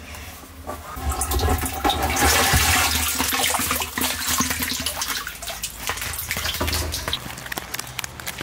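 Water sloshing and splashing in a plastic drum as a woven bamboo basket is plunged in and scoops up live climbing perch, loudest about two seconds in, then smaller splashes as the basket is lifted out.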